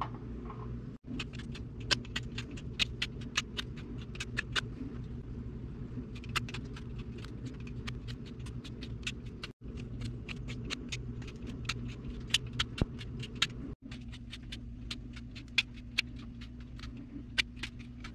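Irregular sharp clicks and taps from hand work on a small piece of pine, over a steady low hum.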